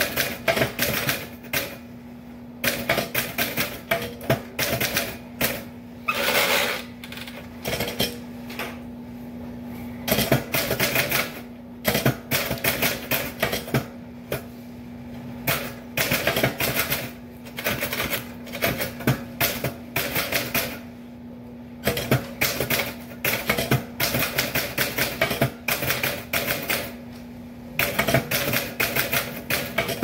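Typewriter keys striking in quick runs of clicks, broken by short pauses every few seconds, over a steady low hum.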